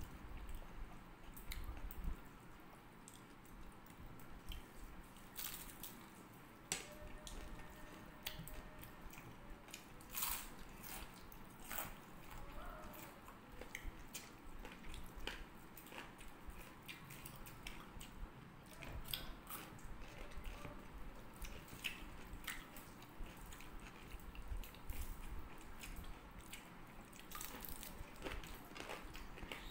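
Close-up eating sounds: quiet chewing, biting and lip smacks, with small crunches and the squish of fingers mixing rice and curry on plates, as scattered soft clicks throughout.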